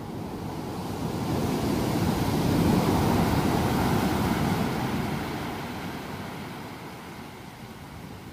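Ocean wave breaking on a sandy beach: the crash of surf swells over the first couple of seconds, is loudest around the middle, then fades as the wash runs out.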